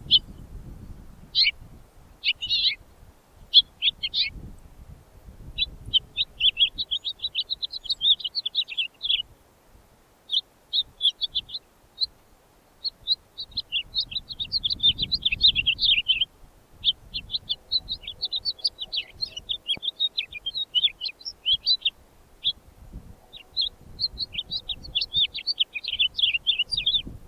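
Songbird singing long, rapid, jumbled warbling phrases of a few seconds each, with short pauses between them.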